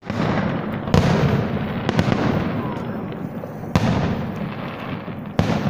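Fireworks salute: aerial shells bursting in several sharp bangs a second or two apart, with a continuous rumble between them.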